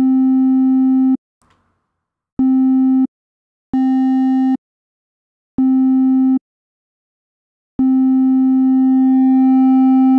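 Sine-wave test tone driven through FL Studio's Fruity Wave Shaper into soft clipping. The steady tone stops and restarts in short bursts of under a second, then holds from about eight seconds in. As it holds it gains more upper overtones and a slightly brighter, buzzier edge, though the added harmonics are less present than with hard clipping.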